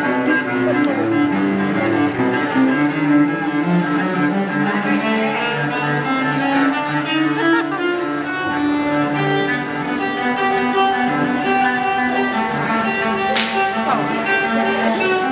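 Cello bowed in long held notes that change pitch every second or so, often with more than one note sounding at once.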